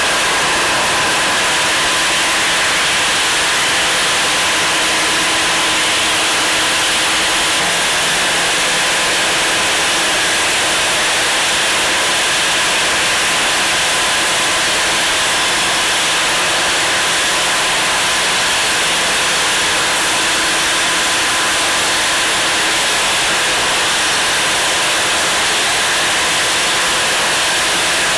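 Industrial sanding machine running steadily: a loud, even hiss with a faint steady whine underneath.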